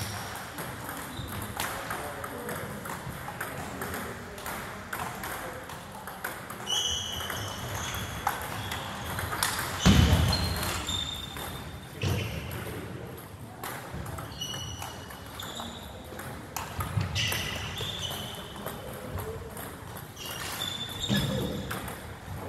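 Table tennis balls in play, clicking off paddles and tables at an irregular pace with short high pings as they bounce, over background chatter. A loud low thump comes about ten seconds in.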